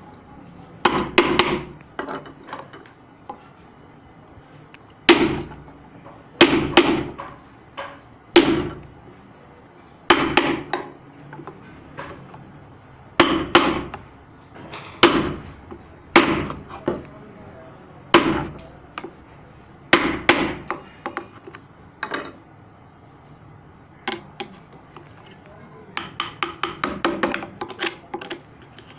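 Carving chisel being struck with a mallet, cutting into wood: sharp single or paired blows every second or two, then a quick run of lighter taps near the end.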